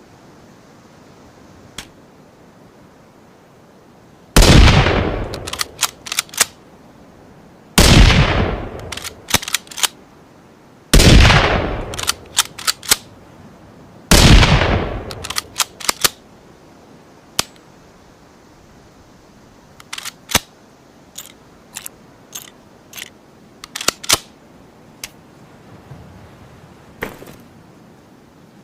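Four shots from a Ruger American bolt-action rifle sound effect, about three seconds apart, each with a long echo tail that falls away and a quick run of metallic clicks as the bolt is worked. After the shots come a string of lighter mechanical clicks and clacks of rifle handling.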